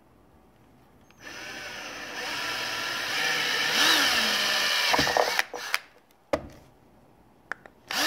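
Cordless drill boring a pivot hole through a 1¼-inch PVC end cap: the motor whine starts about a second in and runs for about four seconds, its pitch wavering about three seconds in. A few short trigger blips and a click follow, and the drill starts again near the end.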